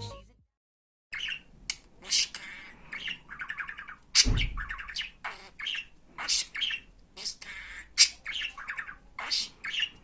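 Talking budgerigar chattering: a fast, broken run of warbled chirps and squawks with speech-like mimicry mixed in, starting about a second in. One louder sharp sound comes about four seconds in.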